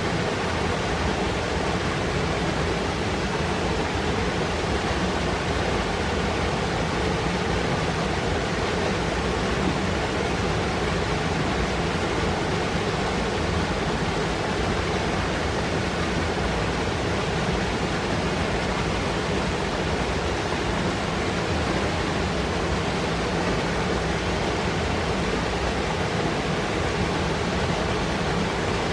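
Fast mountain river rushing and foaming over rocks: a steady, dense roar of water, strongest in the low end.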